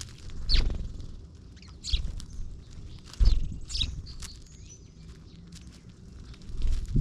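Small birds chirping in short, high calls, broken by three loud low thuds: about half a second in, about three seconds in, and near the end.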